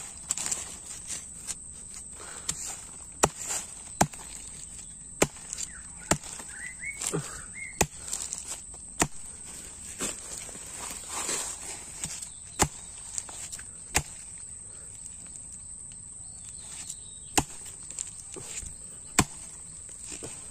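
Irregular sharp blade strikes, a machete or knife chopping at bamboo around a bamboo shoot, about ten blows spread out with pauses between them. A steady high insect drone runs underneath.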